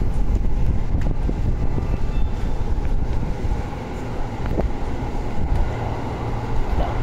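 Steady low rumble of a subway train moving in the tunnel, with a rush of air, heard on an underground platform.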